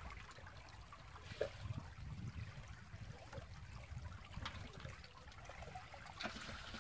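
Faint trickling and splashing of water as a plastic mug scoops and pours shallow water, over a low steady rumble.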